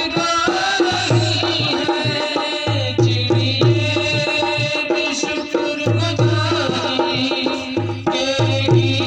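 Instrumental music for a Hindi Christian devotional song: a melody over a repeating low drum rhythm.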